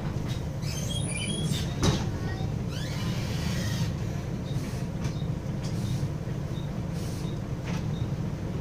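Cabin noise inside a Wright Axcess Floline single-deck bus: a steady low engine and road rumble, with one sharp knock about two seconds in.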